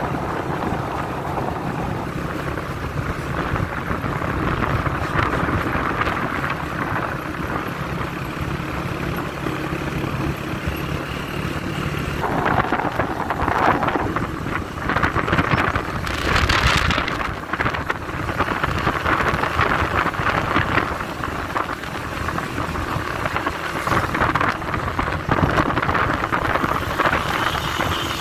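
Engine of a moving vehicle running steadily, with wind rushing over the microphone. The wind noise grows louder and gustier from about halfway, surging in uneven gusts.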